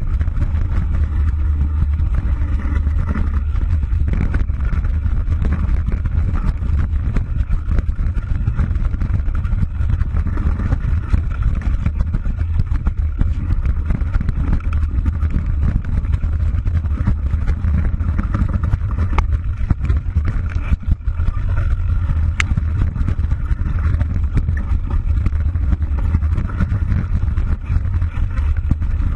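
Off-road vehicle's engine running steadily as it drives over a rough, rutted dirt track, a constant low rumble with rattles and knocks from the bumpy ground.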